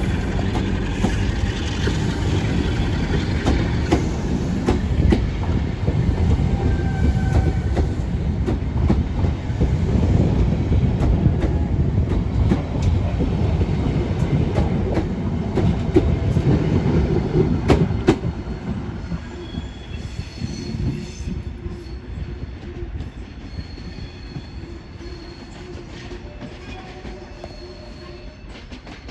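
Locomotive-hauled passenger coaches rolling past close by: a steady rumble of wheels with clicks over the rail joints and occasional faint wheel squeal. After about eighteen seconds it fades as the train draws away.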